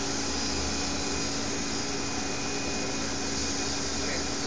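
Steady whir of a small electric motor with an even hiss over it, unchanging throughout.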